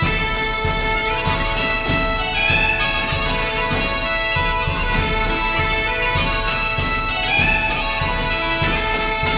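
Background music: a reedy wind-instrument tune over steady held tones, starting abruptly.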